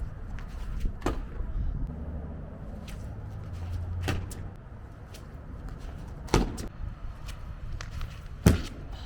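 Several sharp knocks or thuds, the two loudest about six and eight and a half seconds in, over a low rumble.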